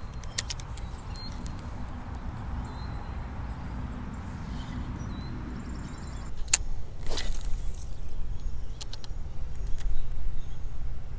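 Spinning rod and reel being handled through a cast and retrieve: scattered light clicks, then two sharp, brief sounds about six and seven seconds in, over a steady low rumble.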